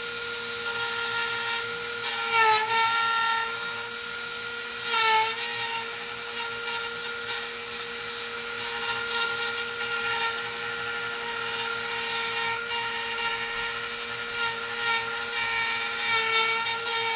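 Dremel rotary tool mounted in a small router table, running with a steady high whine while a hardwood strip is fed past the bit on a light second routing pass, with rough cutting noise that comes and goes as the wood passes. Twice in the first few seconds the pitch dips briefly as the bit loads up in the hard wood, typical of the tool's low torque in hardwood.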